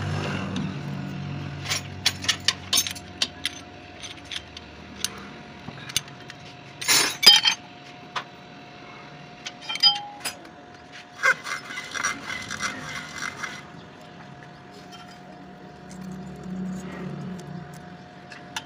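Steel hand tools and a feeler gauge clinking against a tractor engine's valve rocker gear during valve clearance adjustment: scattered sharp metallic clicks, a louder clatter about seven seconds in, and a quick run of rattling clinks a few seconds later.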